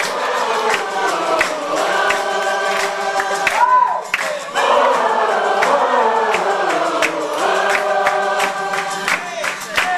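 Many voices singing together in a live acoustic rock performance, an audience sing-along of long held notes over acoustic guitar and a drum beat.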